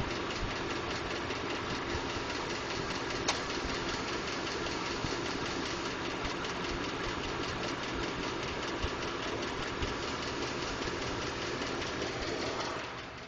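2012 Ford F-150's 5.0L V8 engine running with a rapid, even ticking, the noise Ford has so far diagnosed as normal. A sharper click comes about three seconds in, and the sound drops in level shortly before the end.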